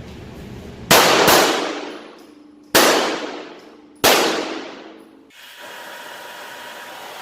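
Four 9mm pistol shots from a Glock 34, each with a long echoing ring: a quick pair about a second in, then two single shots about a second and a half apart.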